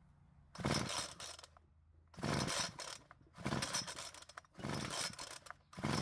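Recoil starter rope of a Homelite two-stroke string trimmer pulled about five times, roughly once a second, each pull a rasping whir as the rope runs out and rewinds. The engine turns over against its high compression but does not fire.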